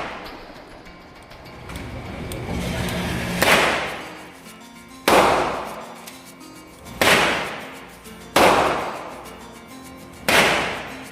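Five gunshots, one every one and a half to two seconds, each sharp crack fading out in a ringing tail, with music faintly underneath.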